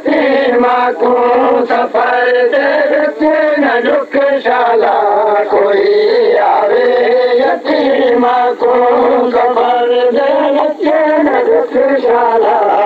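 Male voice singing a noha, a Shia lament, in a chanting style, phrase after phrase with short breaths between.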